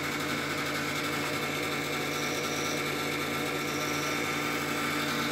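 Desktop computer running with its side panel off: its power-supply and CPU-cooler fans give a steady whir over a low hum.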